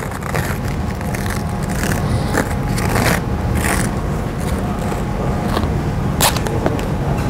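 Stretch athletic tape (Powerflex) being pulled off the roll and wrapped around a foot: several short rasping peels over a steady low hum.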